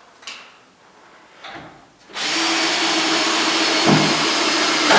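Cordless drill driving a screw into wood framing. It runs steadily for about three seconds, starting about two seconds in, after a few light taps.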